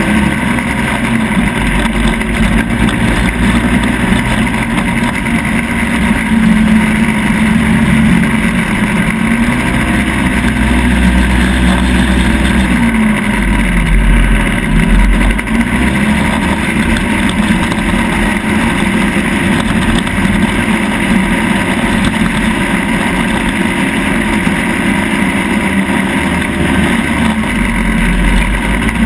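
Off-road vehicle engine running under load while driving over sand dunes, its pitch steady for long stretches and dropping then climbing again twice around the middle as the throttle is eased and reapplied.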